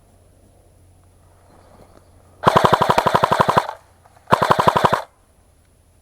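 Airsoft gun firing full-auto: two bursts of rapid, evenly spaced shots, the first just over a second long and the second shorter, with a third burst starting right at the end.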